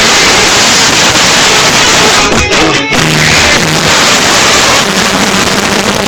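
Loud music played back through a Logitech Z-623 2.1 computer speaker system with subwoofer, in a speaker sound test; the level stays high and steady throughout.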